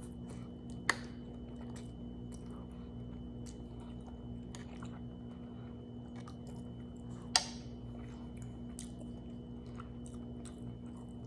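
Close-miked chewing and mouth sounds of someone eating, with many small wet clicks and two sharp clicks, about a second in and past seven seconds. A steady low hum runs underneath.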